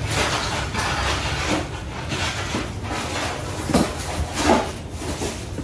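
Steady hiss of a pot cooking on the stove, with a few short clunks of cookware past the middle.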